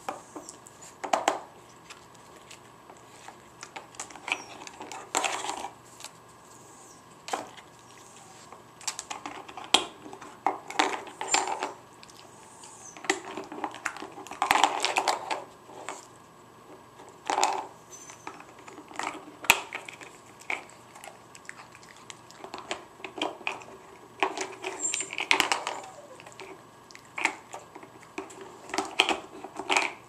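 A dog nosing and pawing at a hard plastic puzzle board. The bone-shaped plastic pieces give irregular clicks, knocks and short rattles as they are pushed, lifted out and knocked against the board.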